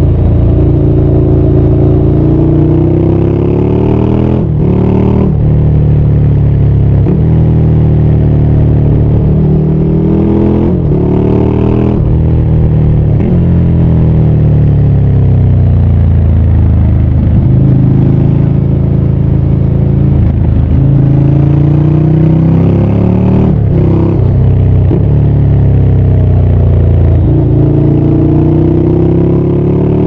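Ducati Scrambler 800's air-cooled L-twin engine under way, pulling up through the gears: the pitch climbs and drops sharply at each of several gear changes. In the middle the revs fall away as the bike slows, then climb again under throttle.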